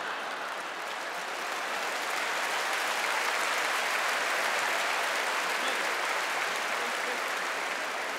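Large audience applauding steadily, a dense even clapping without a break.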